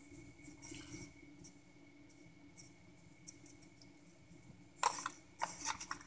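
Light clicks and rustling of small objects being handled, faint near the start and then a quick cluster of sharp clicks about five seconds in, over a faint steady hum.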